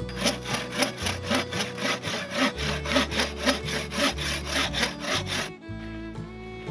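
Hand saw cutting through wood in quick, even strokes, about four to five a second, stopping suddenly near the end. Background music plays underneath.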